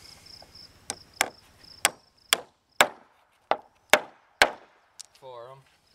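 Hammer driving a nail into a wooden fence board: about eight sharp strikes, roughly half a second apart.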